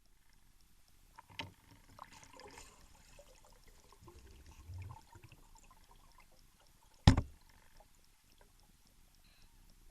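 Underwater sound picked up by a spearfisher's camera: faint clicks and low bubbling rumbles, with a few knocks and one much louder sharp knock about seven seconds in.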